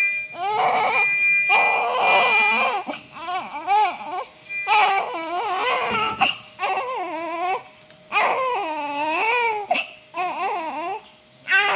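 Newborn baby crying: a run of repeated high wailing cries, each about a second long, with short breaths in between.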